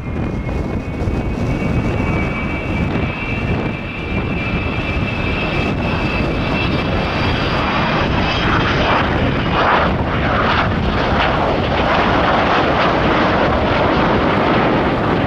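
Avro Vulcan XH558's four Rolls-Royce Olympus turbojets on a low flypast. A high, steady whine rides over the jet rush for the first several seconds, then gives way to a broader, louder roar as the bomber passes and climbs away.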